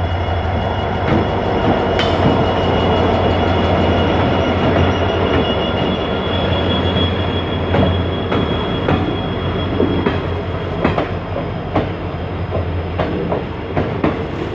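Indian Railways ICF passenger coach running along the track, with a steady rumble and the wheels clacking over rail joints, more often in the second half. A thin high wheel squeal starts about two seconds in and fades out around ten seconds.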